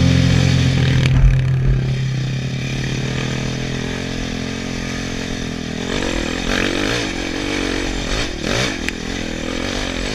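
Dirt bike engine running as the bike is ridden along a trail. From about six seconds in the revs rise and fall repeatedly.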